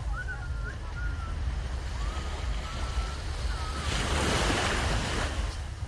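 Ocean waves washing on a beach, with wind buffeting the microphone as a steady low rumble; a wave surges up about four seconds in and fades. Faint distant voices of people on the beach sound in between.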